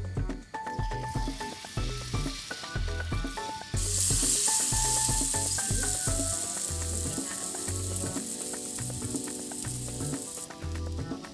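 Hot cooking oil sizzling as a batter-coated, bread-wrapped ball of ice cream deep-fries in a small saucepan. The sizzling is faint at first, grows loud about four seconds in, and eases near the end.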